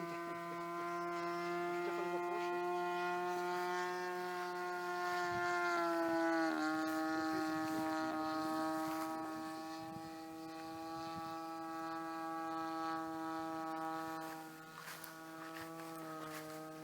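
DLE 20 cc single-cylinder two-stroke petrol engine of a radio-controlled Dewoitine D.520 model plane, turning a 15x8 propeller in flight with a steady buzzing drone. It grows louder and then drops sharply in pitch about six and a half seconds in, then grows fainter with a smaller pitch drop near the end.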